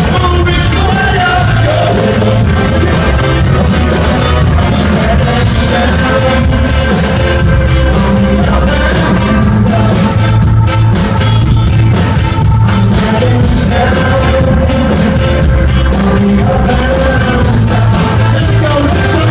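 Loud live band music with singing and a heavy, steady bass beat, recorded from the crowd at a concert.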